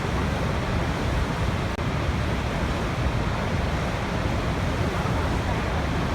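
Steady rush of a waterfall, strongest in the low rumble, with a momentary dropout just under two seconds in.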